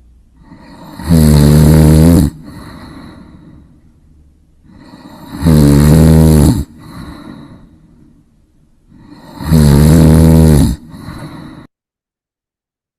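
A person snoring: three loud, rasping snores about four seconds apart, each about a second long and followed by a softer breath out. The sound cuts off suddenly near the end.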